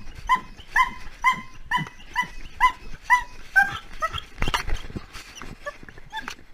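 Puppy left alone crying in a run of short, high-pitched yelping whines, about two a second, then more ragged, with a thump about halfway through: distress calls typical of separation anxiety.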